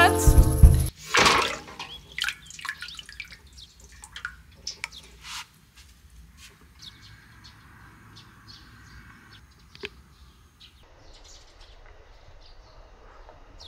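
Water splashing and sloshing in a metal bucket as a hand moves a plastic insert about under the surface, followed by scattered drips and small splashes that thin out after about five seconds.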